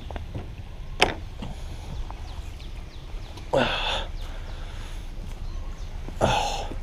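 Splashing and knocking from someone wading in a shallow, rocky creek while handling a kayak: a sharp knock about a second in, then two louder splashes, one near the middle and one near the end, over a low steady rumble.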